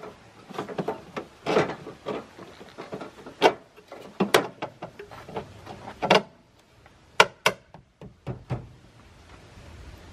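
Aftermarket plastic taillight housing knocking and rubbing against the car's rear body panel as it is pushed and worked into a tight-fitting opening: a run of irregular knocks and clicks.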